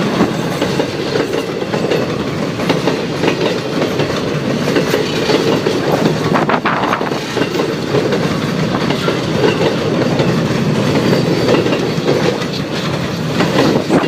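Freight train cars rolling past: a steady rumble of steel wheels on rail, with a few sharp clacks over the rail joints.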